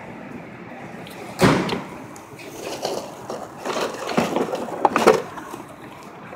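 Knocks and scraping clatter: one loud knock about a second and a half in, then several shorter knocks and scrapes.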